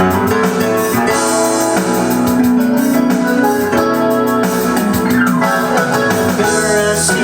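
Instrumental intro of a MIDI backing track from a Roland E-500 keyboard's sequencer, with piano, guitar and drum-kit sounds over a steady beat.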